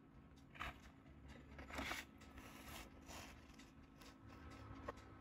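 Metal cake server scraping against the bottom of a metal baking pan as a square of frosted chocolate cake is cut free and lifted: a few short, faint scrapes, the loudest about two seconds in.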